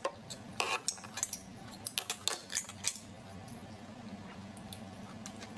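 Cooked scallop shells clinking and clattering against each other and the metal pot as one is picked out of the pile: a run of sharp clicks over the first three seconds, then only faint handling.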